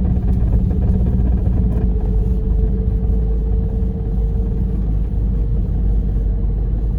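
Car engine and exhaust rumbling steadily inside the cabin while driving, with a steady droning hum that firms up about two seconds in. It is an exhaust vibration that only appears in cold weather, which the driver suspects comes from the muffler.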